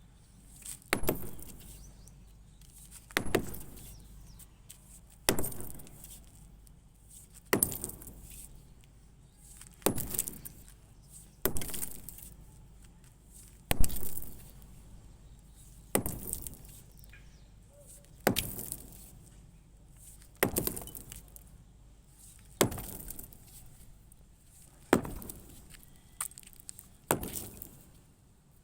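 Heavy hammer blows on reinforced concrete, one strike roughly every two seconds, thirteen in all. Each sharp crack is followed by a short rattle that fades away, and the loudest blow falls about halfway through.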